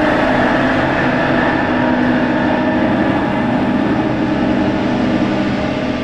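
Big metal spring played with a metal rod and amplified through effects: a dense, sustained metallic scraping drone with several steady ringing tones held inside the noise.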